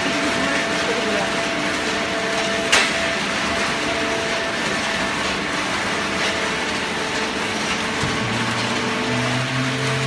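Fully automatic horizontal hydraulic cardboard baler running: a steady mechanical drone with a few held tones, and one sharp click about three seconds in.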